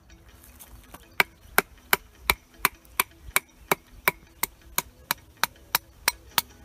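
Wooden baton striking the spine of a Nieto Chamán Bushcraft knife set into an upright piece of wood, splitting it lengthwise (batoning). The sharp knocks come at a steady pace of about three a second, starting about a second in.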